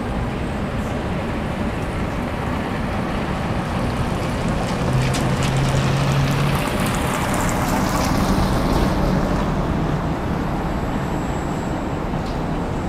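Steady city street traffic rumble. A car passes close near the middle, and the noise swells for a few seconds, then eases.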